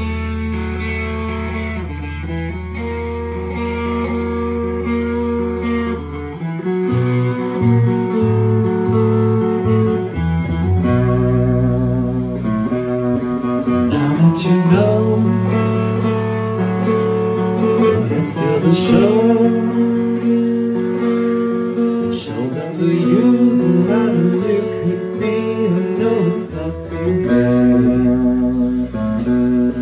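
Rock band playing live: electric guitar and bass guitar through amplifiers, with drums and a voice singing. Long held bass notes carry the first few seconds before the bass line starts moving.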